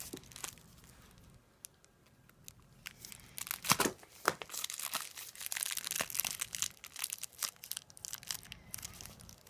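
A mailing tube's packaging being worked open by hand, crinkling and tearing. Quiet for the first few seconds, then a run of irregular crackles and rips, loudest about four seconds in.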